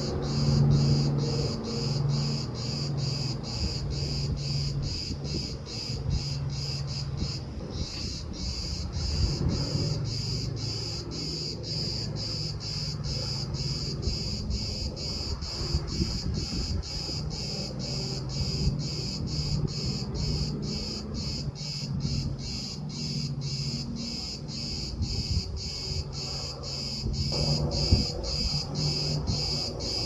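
Insects chirping in a steady rhythm of about two pulses a second, over a low, steady engine drone from amphibious firefighting planes flying low over the sea.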